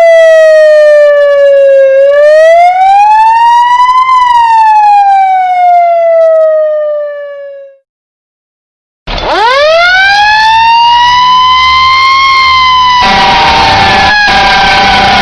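An emergency-vehicle siren in a slow wail, its pitch gliding down, then up, then down again before fading out. After about a second of silence, a fire truck siren winds up quickly from a low pitch to a high, steady tone. About two-thirds of the way in, a second, lower steady tone and a rushing noise join it.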